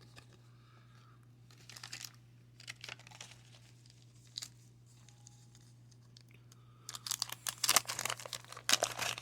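Light handling rustles of trading cards, then from about seven seconds in a 1990 Fleer wax-paper pack wrapper being torn open and crinkled.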